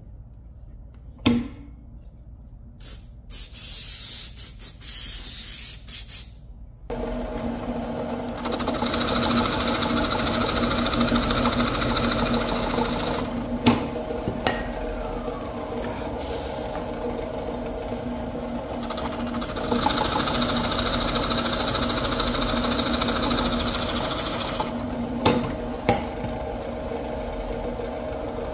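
A woodworking power tool starts about seven seconds in and runs steadily to the end, its hum staying level while a higher cutting noise swells and fades. Before it starts there are a few clicks and short bursts of hiss.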